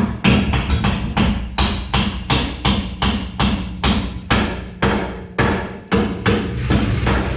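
Repeated hammer blows, about three a second in a steady rhythm, over a steady low hum.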